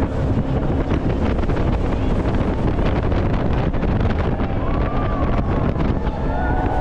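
Wind buffeting the microphone over the steady noise of a Shotover jetboat running on the river.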